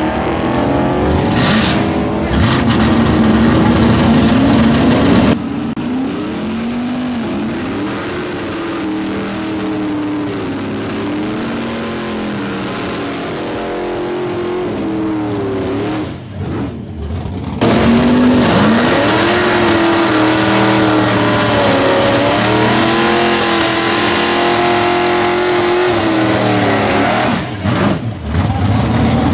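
Drag-race car engines at full throttle down the strip, their pitch climbing and then dropping back again and again as the gears change. The sound cuts abruptly a few times.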